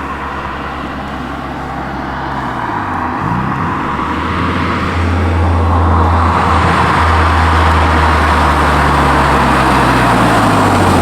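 Audi S3's turbocharged four-cylinder engine through an aftermarket exhaust, driving under load: the engine note drops and breaks briefly about three seconds in, as at a gear change, then comes back and grows louder, holding a strong steady drone for the second half.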